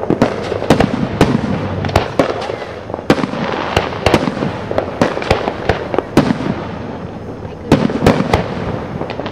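Aerial fireworks bursting: a string of sharp bangs at irregular intervals, often several a second, with the densest, loudest run near the end.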